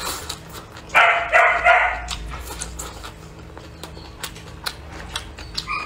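A dog barking three times in quick succession about a second in, followed by scattered faint clicks.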